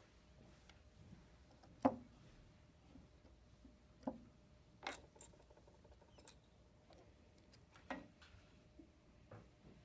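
Sparse light clicks and taps of small hand work with thin wires and a connector, about seven in all, the sharpest about two seconds in, over quiet room tone.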